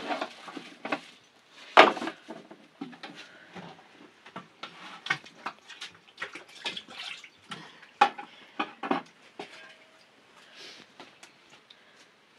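Irregular clinks and knocks of bowls and utensils being handled, a couple of sharper knocks louder than the rest.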